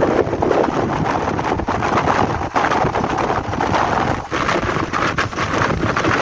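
Wind rushing over the microphone on top of the running noise of a moving passenger train, a steady loud rush with constant small rattles.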